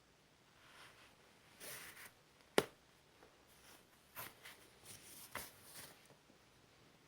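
Faint, scattered stomach gurgles from a digesting belly, heard close up as a few short bursts, with one sharp click about two and a half seconds in.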